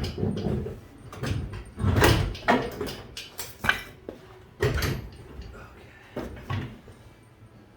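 Irregular metal knocks and clunks as an engine hanging from a hoist is jostled down into a car's engine bay.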